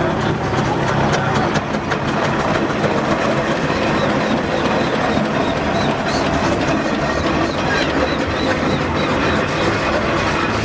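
Steam traction engines running in a parade convoy: a steady mechanical rumble and clatter with scattered clanks.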